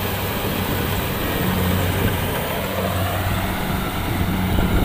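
Rice combine harvester's diesel engine running steadily as the machine works through soft, sticky mud, with a constant low hum.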